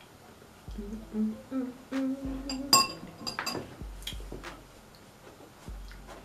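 A person hums a few notes with closed lips while eating. Just after the humming, a metal spoon clinks sharply against a ceramic bowl, followed by a few lighter clinks and scrapes of spoons in the bowls.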